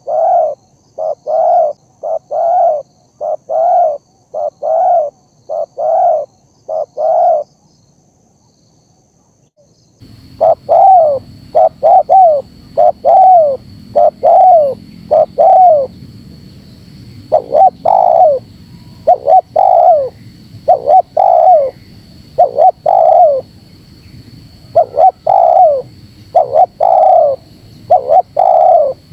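Spotted dove (terkukur) cooing over and over in quick, regular phrases. About a third of the way in there is a gap of a couple of seconds. The cooing then resumes over a faint steady high whine and low background noise.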